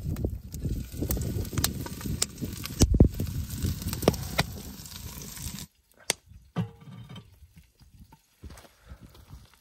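Wind buffeting the microphone over a crackling wood fire, with a heavy knock about three seconds in. A little past halfway the rumble cuts off suddenly, leaving a quieter stretch with a few clicks.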